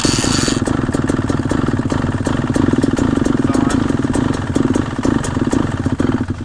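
125cc two-stroke dirt bike engine running poorly at low revs, its firing rapid and uneven, before stopping near the end. A towel left in the air box under the air filter is choking its intake and fouling the spark plug.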